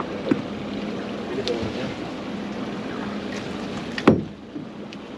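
Boat's engine idling with a steady hum, and a single sharp knock about four seconds in, the loudest sound.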